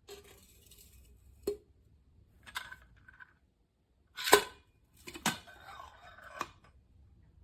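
Metal kitchenware, plausibly the parts of a stainless steel French press, clinking and knocking as it is handled: five or six separate knocks, the loudest about four seconds in, some followed by a short metallic ring.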